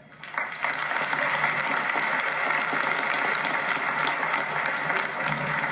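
Gymnasium crowd breaking into applause about half a second in, then clapping steadily and loudly.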